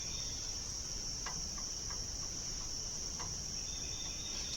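Steady high-pitched chorus of crickets trilling without a break, with a few faint clicks from parts being handled.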